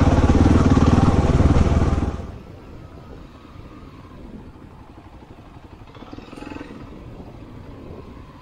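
Dirt bike engine running at low speed on a rough track. It is loud and close for about two seconds, then abruptly much quieter for the rest.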